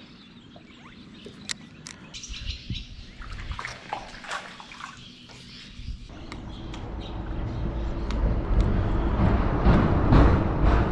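Birds chirping in short calls over quiet open air. About six seconds in, a low rumbling noise rises and grows loud.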